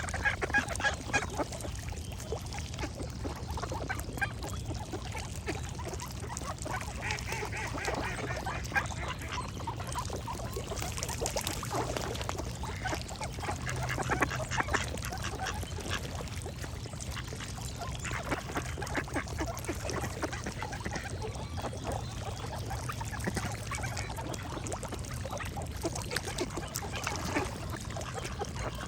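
Ducks quacking over and over, with birds singing in the background.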